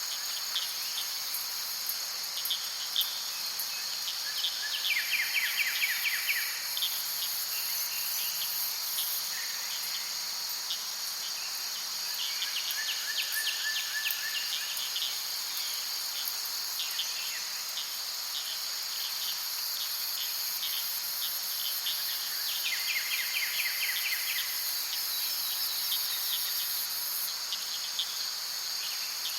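Steady insect chorus of crickets: a continuous shrill high drone, with short rapid clicking trills breaking in about every eight to nine seconds.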